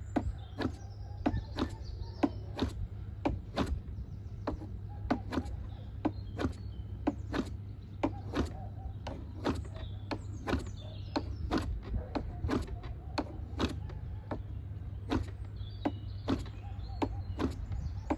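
Model aeroplane glow engine being flicked over by its propeller with a chicken stick, a sharp clack about twice a second, without the engine catching. A steady low hum runs underneath.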